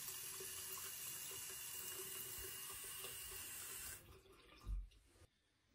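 Bathroom sink faucet running in a steady stream, flushing dirt and rocks out of a new supply line; the water sound cuts off about four seconds in, followed by a single low thump near the end.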